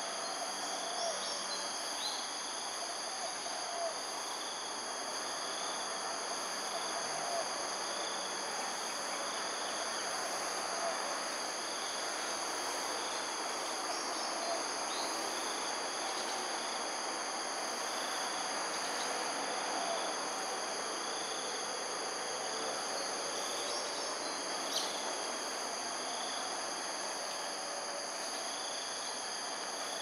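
Steady chorus of insects, a shrill drone at several high pitches, over an even background hiss, with a few faint short bird chirps.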